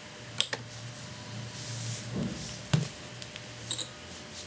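A handful of sharp clicks at a computer as the program is re-run: a close pair about half a second in, the loudest a little before three seconds, another near the end. A low steady hum runs underneath.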